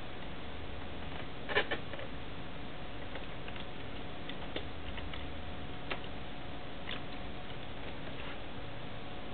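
Steady hiss with a few scattered sharp clicks. The loudest is a quick double click about a second and a half in, and single fainter clicks come a few seconds later.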